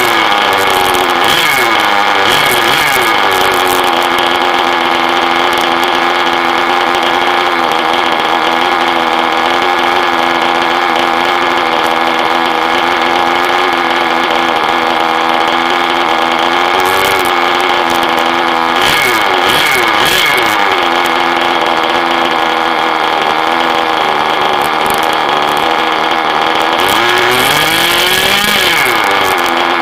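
A small engine running steadily, its speed dipping and rising again a few times.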